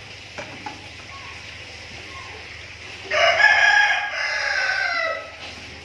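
A rooster crowing once: one long call starting about three seconds in and falling away at the end, over a low steady background hum.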